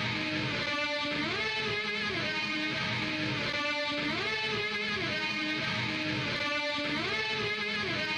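Intro music: an electric guitar riff repeating about every three seconds over a steady backing.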